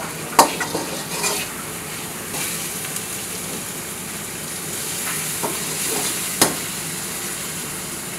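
Chicken drumsticks sizzling in oil and masala in a kadai, stirred with a spatula that scrapes and knocks against the pan a few times. The sharpest knocks come about half a second in and again about six seconds in.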